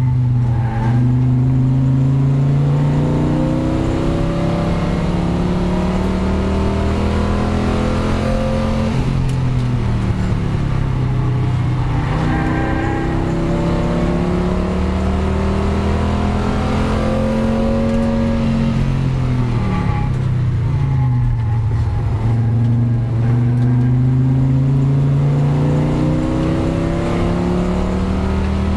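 Audi race car's engine heard from inside its stripped cabin under hard acceleration, revs climbing steadily through long pulls. The revs fall sharply twice, about nine and about twenty seconds in, then climb again.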